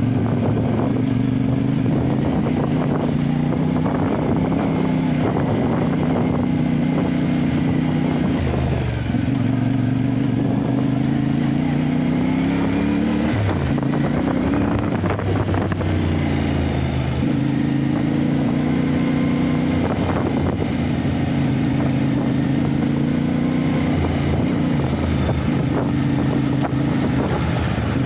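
Motorcycle engine running under way, its pitch falling and rising again with throttle and gear changes around the middle.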